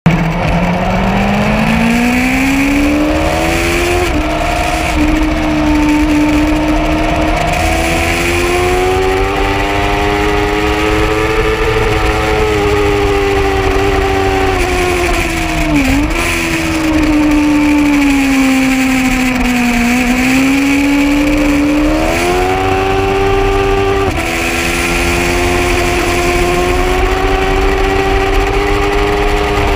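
Yamaha R6 sport bike's inline-four engine at high revs on track, running loud and steady. Its revs climb hard for the first few seconds, change gear about four seconds in, dip sharply and briefly about halfway through, sag and pick up again a few seconds later, and change gear again near the end.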